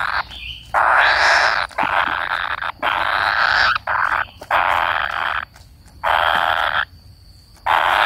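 Young kingfishers waiting for a parent, giving harsh, rasping begging calls in repeated bursts of about a second each, with two short pauses in the second half.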